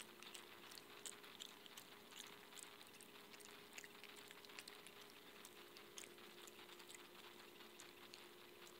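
Faint, quick wet clicks of an opossum chewing and smacking its food off a plate, over a steady low hum.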